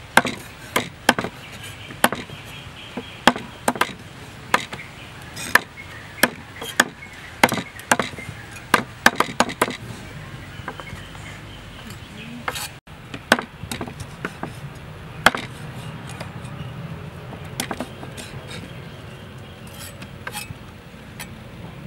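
A cleaver and a knife chopping raw chicken feet on a thick wooden chopping block, trimming off the claw tips: a rapid, irregular run of sharp chops from two cutters at once. The chops thin out after about ten seconds and stop about two-thirds of the way through.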